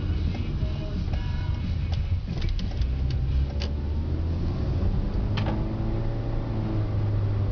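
Small hatchback heard from inside the cabin while driving: a steady engine and tyre drone, with a few light clicks in the middle. About two-thirds of the way in the engine note grows stronger and steadier.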